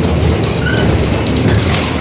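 Onboard sound of a Mercedes-Benz OF-1721 city bus under way: the steady rumble of its diesel engine and drivetrain, with the growl of the differential, and rattling from the body throughout. A brief squeak sounds just under a second in.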